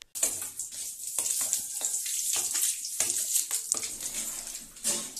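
Water from a supply pipe gushing and splashing into a blue plastic drum, spraying about as the drum fills. It starts suddenly, with a louder surge near the end.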